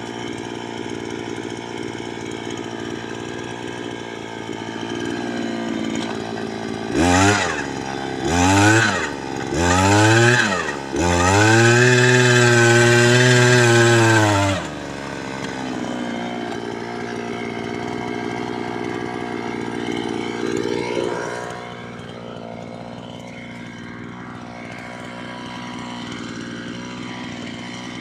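Power drill boring a hole in a plant pot. The motor runs steadily, is revved up and down three times about seven seconds in, then is held at full speed for a few seconds, the loudest part, before dropping back to a steady run.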